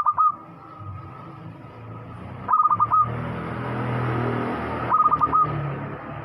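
Zebra dove (perkutut) cooing three times, about two and a half seconds apart: each phrase is a quick run of short notes ending in a longer one. A steady low background noise runs underneath.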